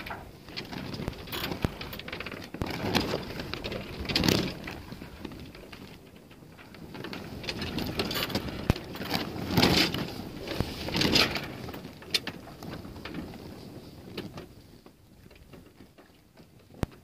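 Slack sails and rigging of a becalmed sailboat slatting and rattling as the boat rolls, with irregular clicks and knocks and swells of flapping noise that die down near the end.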